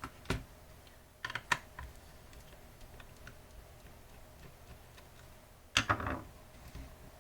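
Sharp clicks and clacks from handling the plastic Contour RollerMouse pad: a single click, a quick pair about a second in, and a louder cluster of clacks near the end.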